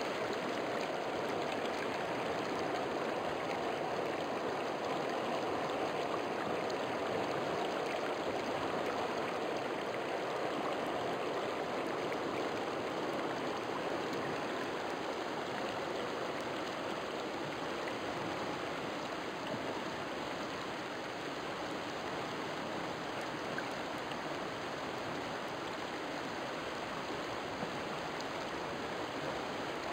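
River flowing: a steady rush of running water.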